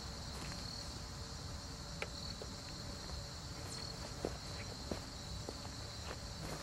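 Insects chirring steadily at a high pitch, with a few faint scattered ticks.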